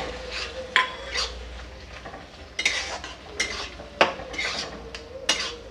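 Metal spoon stirring chopped tomatoes into thick masala in a metal kadhai. It clinks and scrapes against the pan in quick, irregular strokes, about two a second.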